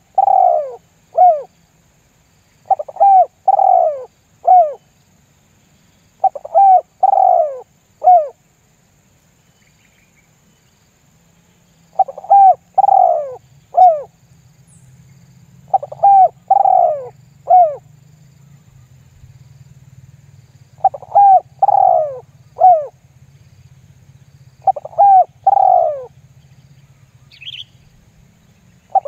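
Spotted dove cooing in repeated short phrases of three or four falling notes, one phrase about every four seconds, with one longer pause in the middle. This is the tekukur lure call used to draw other doves to answer.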